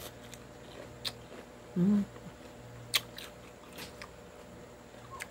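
Close-up eating sounds of raw lettuce leaves: crisp crunching bites and chewing, a few sharp crunches standing out. About two seconds in, a short hummed 'mm' from the eater.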